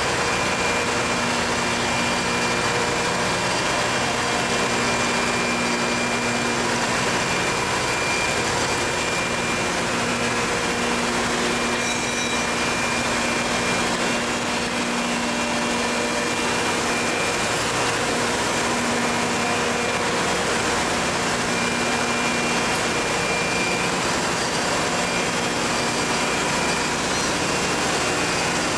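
Dry ice production machinery running steadily: a constant dense mechanical noise with a steady hum.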